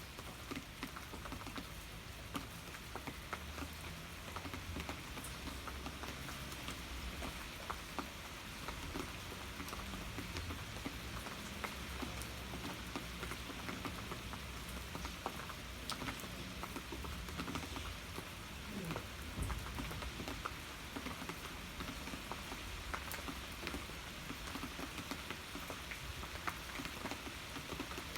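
Steady rain falling, an even hiss scattered with the ticks of individual drops striking a surface.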